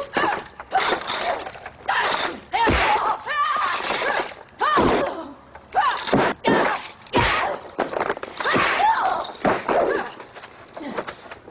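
Martial arts film fight with a staff: a rapid run of sharp hits and clacks mixed with short shouts and yells from the fighters.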